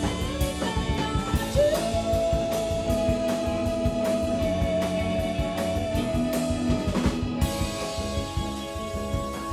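Live rock band playing: drum kit, electric bass and guitar. One long note is held for about five seconds from about a second and a half in.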